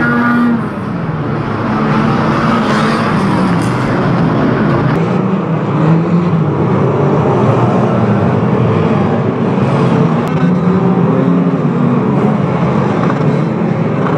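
Engines of several banger racing cars running hard together, their pitch rising and falling as the drivers rev and lift.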